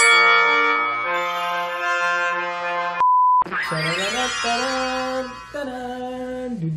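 Edited-in background music with brass, playing held notes. About three seconds in it is cut by a short electronic beep, and then music with held notes that step between pitches carries on.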